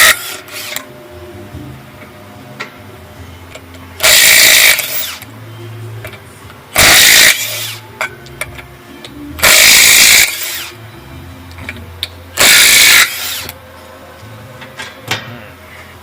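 Impact wrench running in four short, loud bursts about three seconds apart, spinning the lug nuts off a truck wheel.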